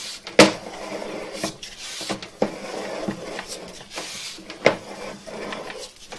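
Sewer inspection camera push cable being fed through the line and reel: continuous rubbing and scraping, broken by several sharp clacks, the loudest about half a second in and just before five seconds in.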